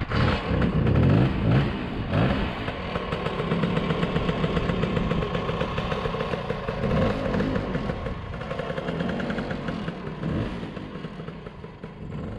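Motor scooter engines running, one revved up and down several times, loudest in the first couple of seconds and easing off toward the end.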